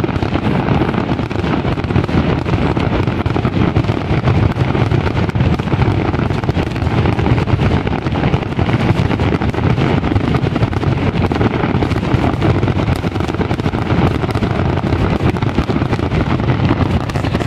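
Fireworks barrage: a dense run of bursts and crackles, so close together that they merge into one continuous rumble with no breaks.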